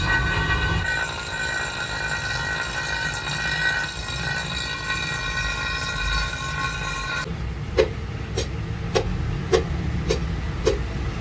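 Angle grinder with a grinding disc running against the metal end of a tractor rear axle housing, a steady high whine over a low rumble that cuts off about seven seconds in. Then a run of about six sharp knocks, less than a second apart.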